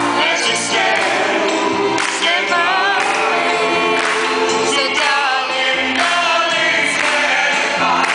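Music playing: a choir singing with wavering, vibrato-laden voices over instrumental backing.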